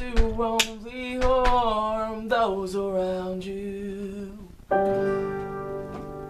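Song with singing and acoustic guitar: the voice holds a long note, then about four and a half seconds in a strummed chord rings out and slowly fades.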